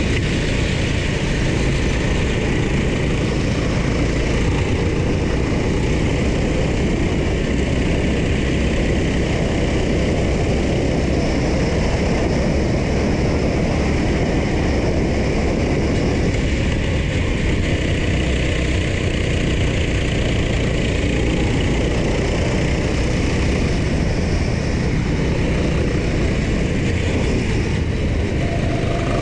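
Go-kart engine running at racing speed, mixed with heavy wind rush on the onboard camera's microphone, as a steady, loud noise.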